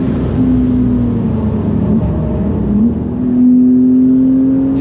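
Porsche 991.2 Carrera GTS twin-turbo flat-six engine running hard under load. Its pitch drops about half a second in, then rises near the three-second mark and keeps climbing slowly as the car accelerates.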